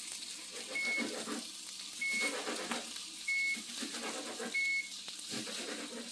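Sliced onions sizzling steadily in a hot skillet, while a kitchen appliance timer beeps four times in short high tones about every 1.3 seconds. The beeps are the loudest sound.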